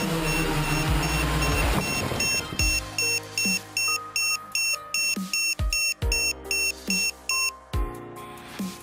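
Hexacopter's brushless motors and propellers spinning, cutting off about two seconds in. A high electronic buzzer then beeps steadily, about two and a half beeps a second for some five seconds, with a few handling thumps near the end.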